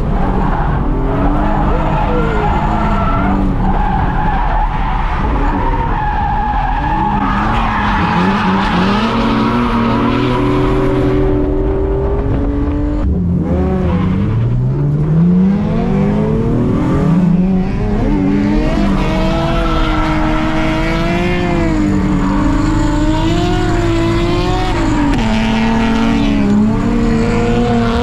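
Drift car engine revving up and down hard through a drift, with tires squealing and skidding. The engine pitch rises and falls again and again, with one long climb about midway.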